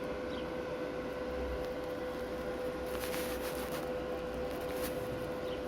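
Wert SWI 190 inverter welder idling, its cooling fan running with a steady hum and a constant mid-pitched whine. A few faint rustles about three seconds in.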